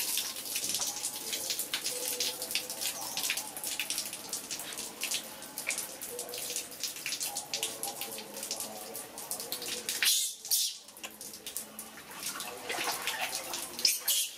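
Water splashing and sloshing in a large steel basin as a young macaque paddles through it, with water being scooped and rubbed over another monkey and a thin stream running. There is a louder splash a little after two-thirds of the way through.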